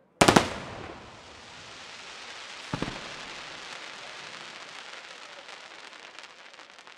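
Aerial firework shells bursting: a tight cluster of loud bangs, then a long crackling of falling sparks that slowly thins out. There is one more bang about three seconds in, and scattered small pops near the end.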